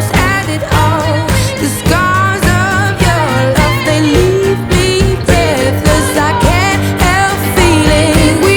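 Background music: a pop song with singing over a steady beat.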